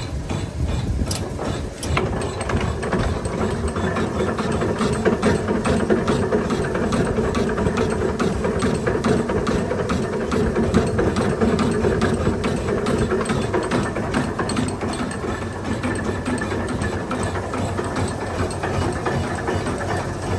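Milling machine running steadily through a gear-cutting pass, with a fast, even rattle over a constant drone.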